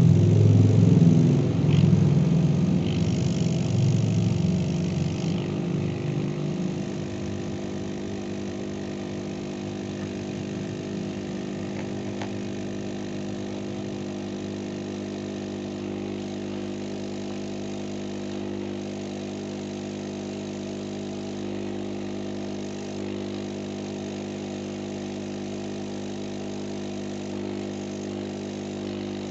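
Home-built hot-air soldering station's blower running with a steady hum. It is louder and rougher for the first six seconds or so, then settles to an even level.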